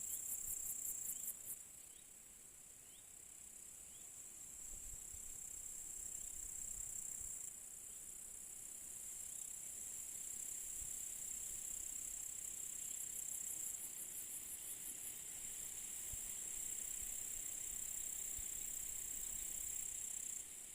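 Crickets chirring in a steady, high-pitched trill. There are stretches of fast, even pulsing near the start and again about halfway through.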